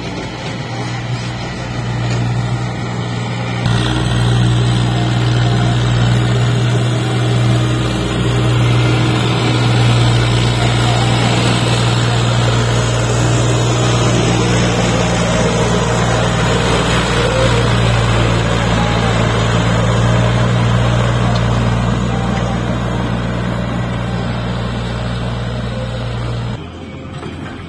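Farm tractor diesel engine running at a steady speed while pulling a trolley loaded with earth: a loud, even drone that cuts off abruptly near the end.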